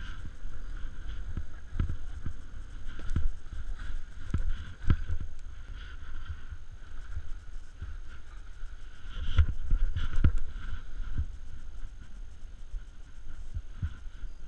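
A snowboard riding fast through off-piste powder, with wind rushing over the microphone as a low rumble. Irregular thumps come as the board hits bumps in the snow, the heaviest about nine to ten seconds in.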